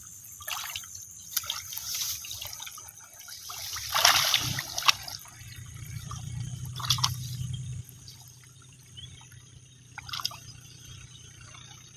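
Shallow muddy water splashing irregularly as hands grope through the mud and water plants for fish; the loudest splash comes about four seconds in.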